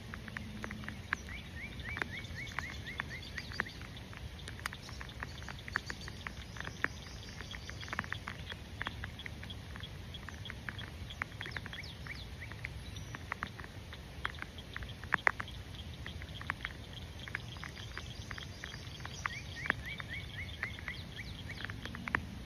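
Rain pattering, with many irregular sharp ticks of single drops over a steady low rumble. Short bursts of high, rapidly repeated chirping animal calls come and go in the background.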